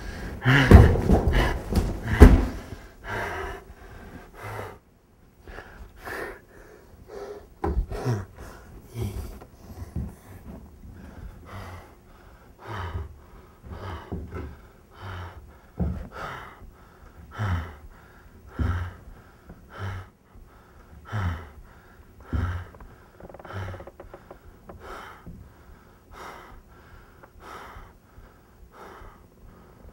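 A man's heavy, ragged breathing, with gasps about once a second: the laboured breathing of a man who has been shot. A few loud knocks and shuffles come in the first couple of seconds.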